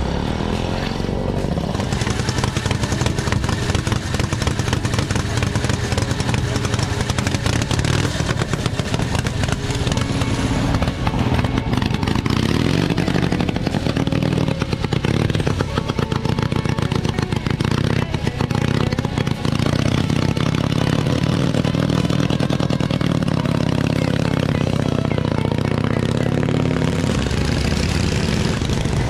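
Vintage motorcycle engine running, its firing beats loud and continuous, rising and falling in pitch as it is revved.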